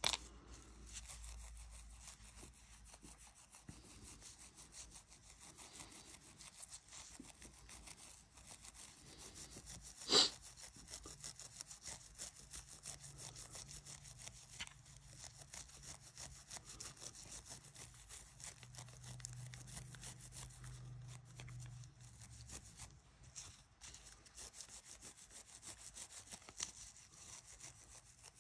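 Fast, continuous abrasive rubbing strokes on the guitar during setup work, with one sharp click about ten seconds in.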